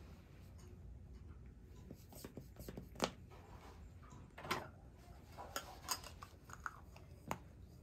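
Light clicks and knocks of hard plastic vacuum cupping cups being handled and taken from their case, a few scattered taps with the sharpest about three seconds in.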